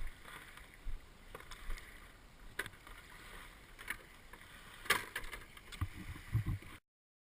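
Kayak paddling on open water: paddle strokes splashing and dripping, with scattered short splashes and knocks against the hull over a low wash of water and wind. The sound cuts off abruptly near the end.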